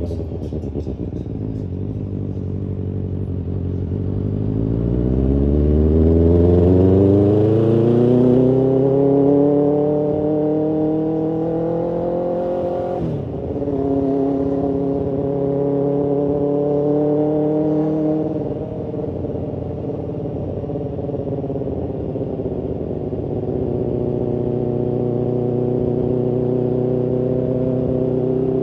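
BMW S1000RR's inline-four engine and exhaust heard from the rider's seat. It runs at steady revs, then pulls with its pitch climbing for about eight seconds. About thirteen seconds in it drops sharply at an upshift, then eases off and cruises at steady revs.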